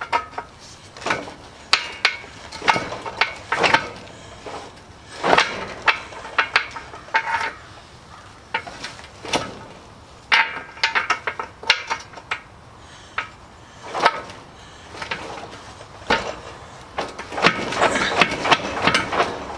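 Steel tractor rim and wheel knocking and clinking against each other while a bolt is fitted and the rim is worked round to line up with the wheel's bolt holes. The metallic knocks come at irregular intervals and become a quicker rattle near the end.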